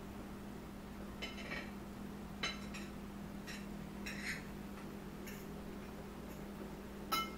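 A few faint, irregular clicks: a Shih Tzu's claws tapping on a tile floor as she drops from begging on her hind legs to all fours and sits up again. A steady low hum lies underneath.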